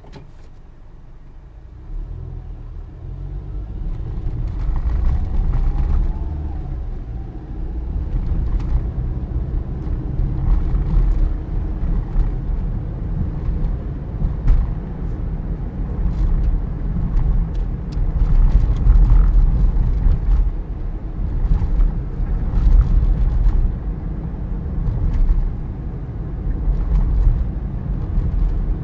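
Toyota Passo driving over a rough road, heard from inside: a steady low road rumble with irregular rattling knocks. The rattle is the sign of a loose brake disc caliper.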